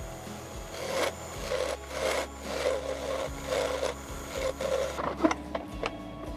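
Rhythmic back-and-forth abrasive strokes on wood, about two a second, as in hand sanding or rasping, followed by a couple of sharp knocks near the end.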